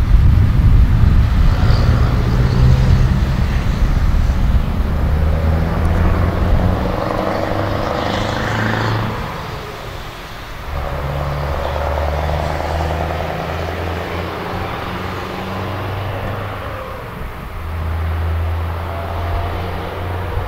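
The J W Ballast clattering past, its engine running with a low, loud drone. The drone is loudest for the first seven seconds, then carries on more quietly with a short dip about ten seconds in.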